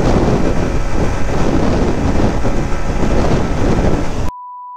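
Wind rushing over the camera microphone, mixed with a Yamaha MT-15 V2's 155 cc single-cylinder engine, while the motorcycle cruises at highway speed. About four seconds in, the sound cuts off abruptly and is replaced by a steady high beep tone.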